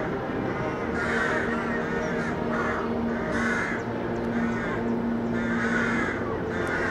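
Rooks calling in a breeding colony: many birds cawing from their nests in overlapping calls, a new caw every second or so.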